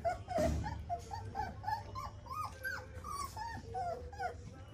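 Four-week-old miniature Bernedoodle puppies whimpering and yipping: many short, high, rising-and-falling calls, a few a second, dying away near the end. A soft bump comes about half a second in.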